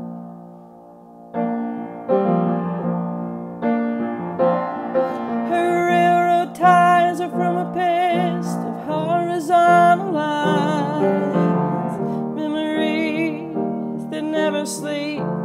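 Slow piano intro to a song: held chords that ring and fade, with a melody line wavering above them.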